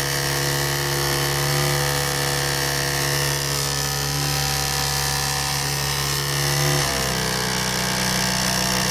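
Washing-machine pump motor running with a steady electric hum. About seven seconds in, the hum jumps abruptly to a higher pitch.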